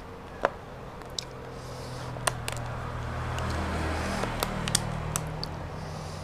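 Fingers picking up cassava rice and side dishes from a plastic takeaway box, making small sharp clicks and soft scraping rustles. Underneath, a low vehicle engine hum builds from about two seconds in and peaks around the middle.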